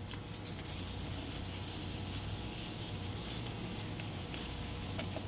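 Whiteboard eraser rubbing across a whiteboard, wiping off marker writing with a steady scrubbing.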